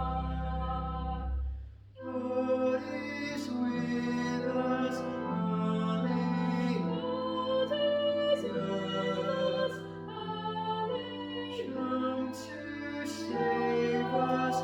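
Voices singing a slow hymn, held notes with sung words, breaking off briefly about two seconds in and then going on.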